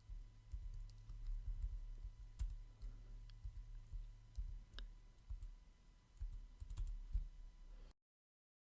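Typing on a computer keyboard: scattered, irregular keystroke clicks over a faint low hum, cutting to dead silence near the end.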